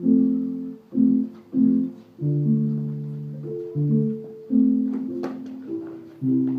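Keyboard instrument playing a slow sequence of chords: three short chords about half a second apart, then longer held chords that change every second or so.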